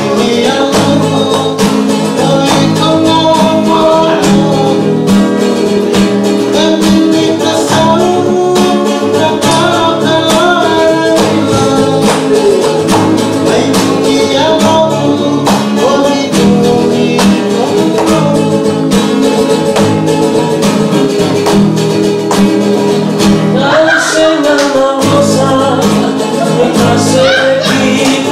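Several men singing together to a strummed acoustic guitar, a Fijian song performed live in a group.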